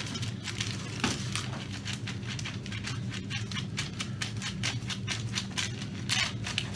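Clear plastic protective film on an acrylic glass panel crinkling and rustling in a quick, irregular run of crackles as it is handled, over a faint steady low hum.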